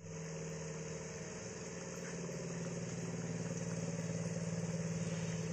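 Gram-flour-coated peanuts frying in hot oil in a kadhai, a steady sizzle, over a steady low mechanical hum.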